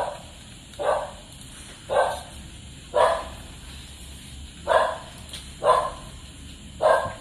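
A dog barking over and over, seven barks roughly a second apart.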